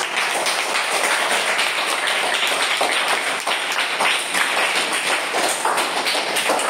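A classroom of schoolchildren applauding, many hands clapping at once.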